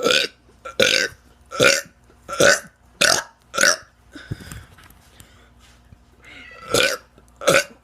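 A teenager deliberately burping over and over: six short burps in quick succession, a pause of about two seconds, then two more near the end.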